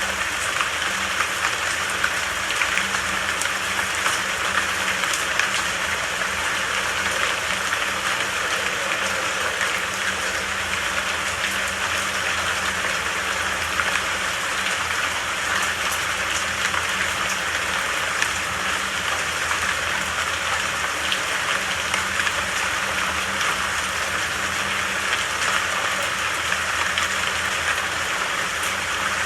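Steady rain falling, an even hiss with scattered faint drop ticks, over a low steady hum.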